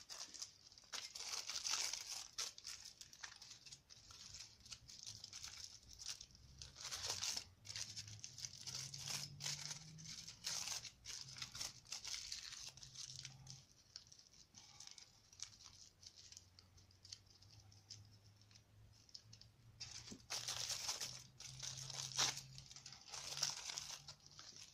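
Aluminium foil being crumpled, torn and pressed by hand around a wire armature: irregular crinkling and rustling, busier at the start and near the end with a quieter stretch in the middle.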